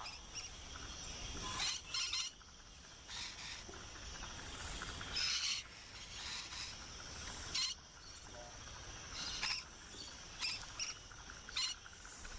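Rainbow lorikeets giving about ten short, high-pitched calls spaced irregularly, over a steady high insect hum.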